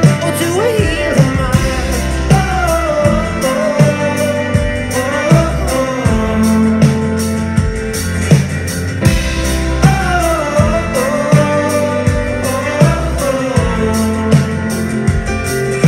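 Live folk-rock band playing: acoustic guitar, fiddle, bass guitar and drum kit, with the drums keeping a steady beat of sharp hits under a gliding melody line.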